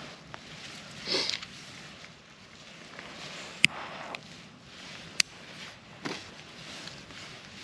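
Rustling and crunching in campfire ash as a firelighter cube is set down and handled, then a sharp click about three and a half seconds in as a lighter sets the cube alight, and a second sharp click about a second and a half later.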